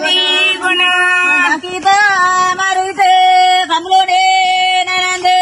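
Singing of a Tulu paddy-transplanting folk song (natti paddana), a slow melody with long held notes that bend from one pitch to the next.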